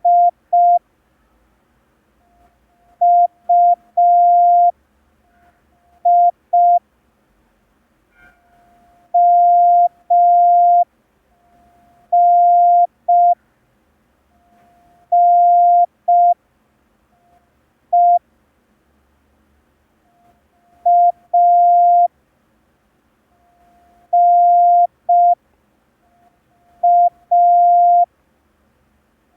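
Morse code practice tone: one steady pitch keyed on and off in dots and dashes, sending groups of letters for copying practice. The letters come from the thirteen learned so far: E, I, S, H, T, M, O, A, U, V, N, D and B.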